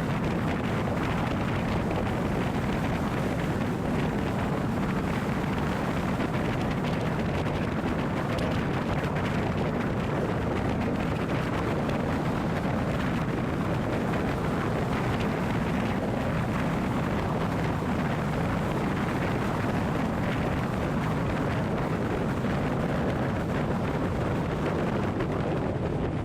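Steady low rumble of a car being driven, road and wind noise at an even level with no changes.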